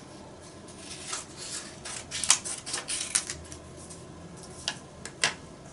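Paper template sheets being handled and laid down on a cutting mat, with several sharp clicks and taps, most of them from about two seconds in.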